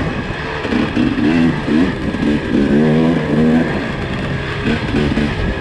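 Race car engine heard from on board, its note rising and falling in short swings as the throttle and revs change.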